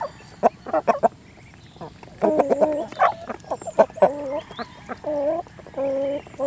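Chickens and ducks feeding. There are short sharp clicks at first, then from about two seconds in a series of drawn-out clucking calls, four or five in a row.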